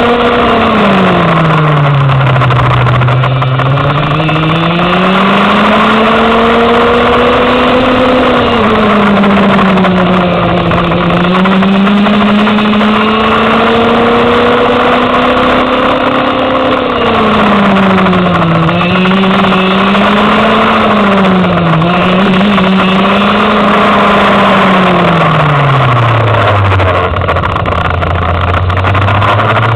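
Go-kart engine heard onboard through a lap, its pitch rising as it accelerates and falling as it slows for corners several times. Near the end it drops deep and low for a tight turn, then starts climbing again.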